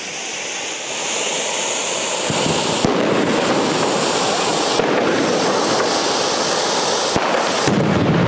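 Ground fountain firework spraying sparks with a steady, dense hiss that shifts in tone a few times, with a few sharp pops. It grows louder and fuller near the end.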